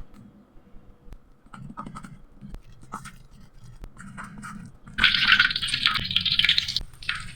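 Light scraping and small knocks, then about five seconds in a sudden loud sizzle of potato snacks frying in hot oil, which carries on crackling.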